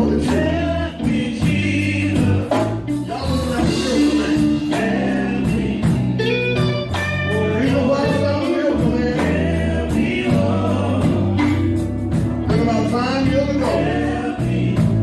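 Gospel song: voices singing over bass, guitar and drums with a steady beat.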